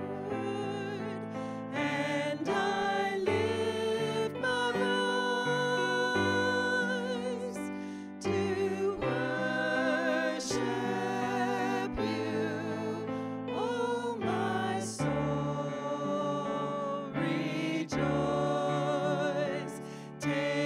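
A vocal trio, two women and a man, singing a worship song with keyboard accompaniment; the held notes carry a wavering vibrato.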